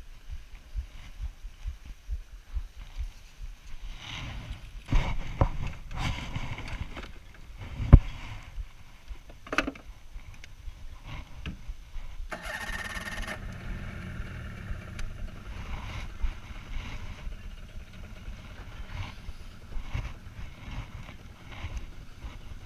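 Small tiller outboard motor starting about halfway through with a short rush of noise, then running steadily. Before it starts, knocks and thumps of gear being moved about in the boat, with wind rumbling on the microphone.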